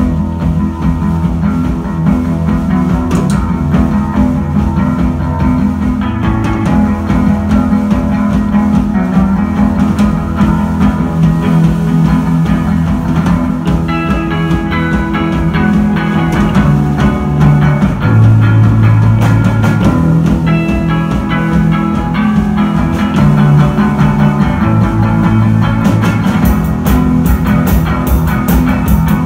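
A rock band playing live: electric guitar, bass guitar and drum kit, with a quick run of cymbal strokes near the end.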